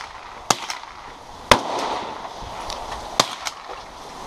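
Gunfire on an outdoor range: about six sharp cracks of differing loudness at uneven spacing, the loudest about a second and a half in and another a little after three seconds.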